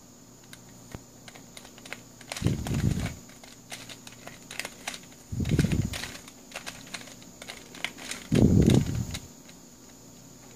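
Plastic pieces of a Pyrastar twisty puzzle clicking and clacking as its faces are turned by hand, in quick irregular clicks. Short low rumbles recur about every three seconds and are louder than the clicks.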